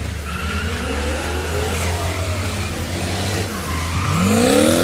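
Semi-truck tractor unit doing burnout doughnuts: its engine revs while the spinning rear tyres squeal and smoke. The engine pitch sweeps up and down near the end.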